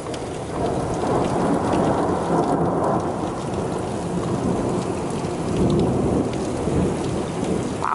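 Long rolling rumble of thunder that swells about half a second in and keeps going, over a steady hiss of rain.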